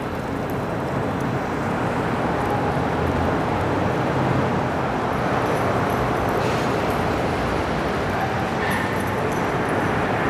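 Steady rumble of city traffic, with no single distinct event standing out.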